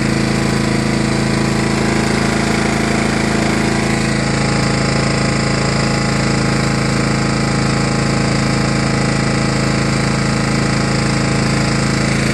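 Kohler Command 12.5 hp single-cylinder engine of a John Deere LA105 lawn tractor running at a steady speed.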